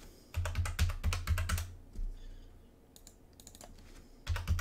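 Typing on a computer keyboard: a quick run of keystrokes about half a second in, a few scattered taps in the middle, and another quick run near the end.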